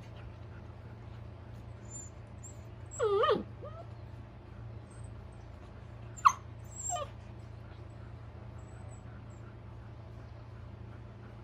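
A dog whines briefly about three seconds in, then gives a sharp yip and another short whine a little after six seconds while playing over a toy, over a steady low hum.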